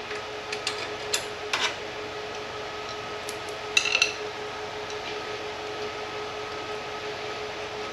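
Several light metal clinks and taps as a metal bracket and its hardware are handled and fitted onto a reel mower's frame, the loudest a short ringing clink about four seconds in. Under them runs the steady hum of an electric fan.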